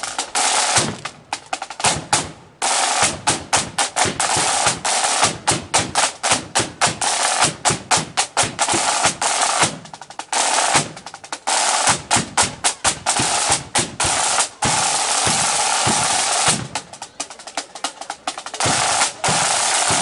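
A corps of marching side drums playing together in a fast parade beat: crisp, dense strokes broken by several sustained rolls.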